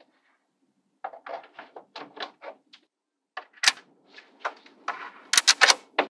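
Small magnetic balls clicking together as magnetic-ball pieces are snapped onto a model: a run of light, quick clicks, then a few sharper, louder clacks near the end.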